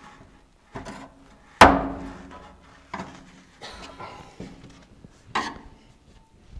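Hand tool knocking and scraping against the inside of a steel fender skirt as it is worked loose from the car body: about six irregular knocks, the loudest about a second and a half in, after which the metal panel rings briefly.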